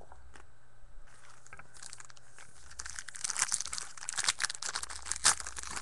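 Foil wrapper of a Topps Strata trading card pack crinkling as it is handled and torn open, starting about two seconds in and growing louder.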